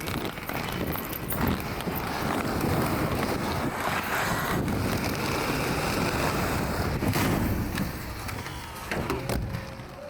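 Wheels rolling over street pavement: a steady rumble with a few sharp knocks, fading near the end.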